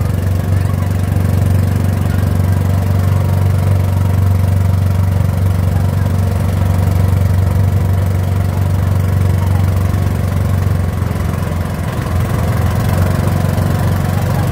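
A riverboat's motor running at a steady speed, a loud, even, low drone with no break.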